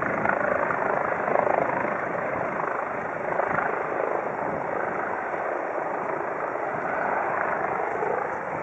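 Distant Eurocopter EC135 rescue helicopter running on the ground, a steady rushing drone that swells and fades slightly.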